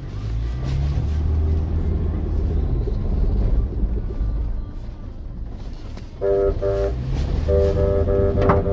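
Vehicle engine and road rumble while driving; about six seconds in, a loud multi-tone vehicle horn sounds two short blasts, then a longer run of quick, pulsing honks.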